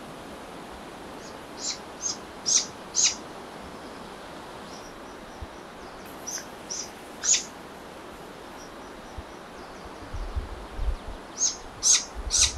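Great grey owl chicks giving short, high begging calls in three clusters of three or four, over a steady hiss of forest background. A few low bumps come in near the end.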